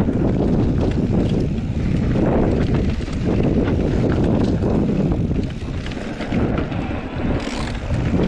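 Heavy wind buffeting the microphone of a camera carried on a moving bicycle: a loud continuous rush weighted to the low end, easing slightly about five and a half seconds in.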